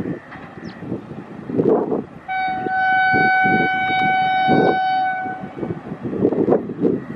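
WAP-5 electric locomotive's horn sounding one long steady blast of about three seconds, starting about two seconds in. Irregular low rumbling comes before and after it.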